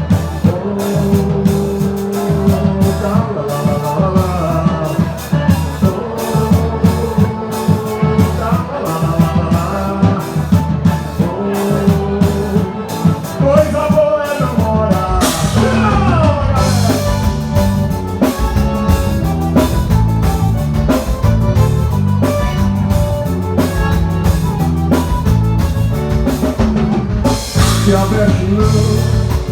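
Live forró band playing: an accordion melody over a steady beat of zabumba drum and triangle.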